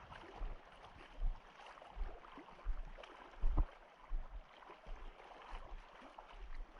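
Mountain stream water running, with irregular low thumps through it, the strongest about halfway through.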